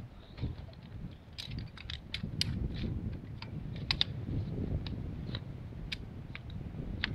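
Folding camp chair's frame being taken out of its bag and opened up: a run of sharp, irregular clicks and rattles as the legs are swung out and locked, over low handling rumble.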